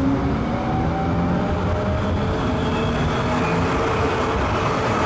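A motor vehicle's engine running steadily, with a slight rise in pitch in the second half.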